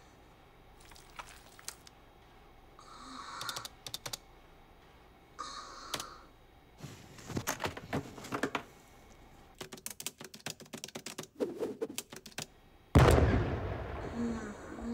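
Computer keyboard typed on in quick bursts, with rapid clattering runs of keystrokes. Two short electronic blips sound in between, and about thirteen seconds in a loud sudden hit rings out and fades over a couple of seconds.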